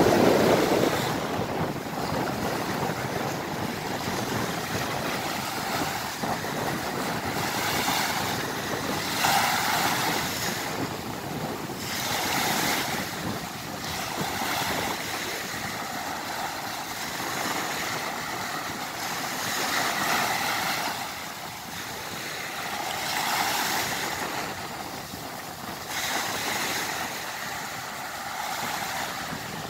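Wind blowing across the microphone over choppy surf. The waves swell and wash in every few seconds, and a heavy gust buffets the microphone right at the start.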